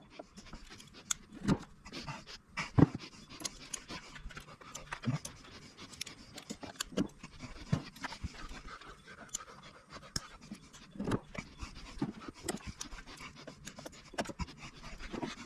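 Scattered, irregular clicks and knocks of hand work on an opened EV high-voltage battery pack, with parts and tools being handled; the loudest knocks come about three seconds in and about eleven seconds in.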